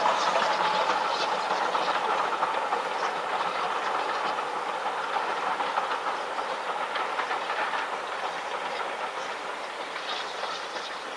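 Steam-hauled passenger train running past, with the tail of a steam whistle blast ending about half a second in. The coaches' wheels click over the rail joints, and the sound fades steadily as the train draws away.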